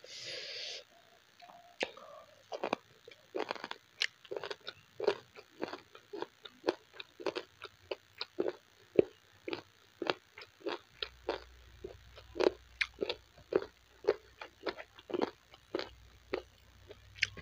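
Close-miked chewing of a mouthful of rice and mutton curry: a steady run of short mouth clicks, about two to three a second.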